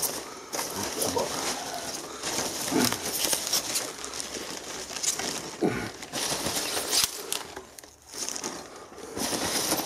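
Polystyrene foam packing peanuts rustling as hands dig and rummage through them in a cardboard box, the sound dropping away briefly about eight seconds in.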